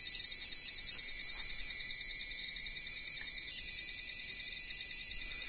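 Steady high-pitched electrical hiss with faint whining tones from a running spark-gap high-voltage coil circuit; the hiss changes abruptly about three and a half seconds in.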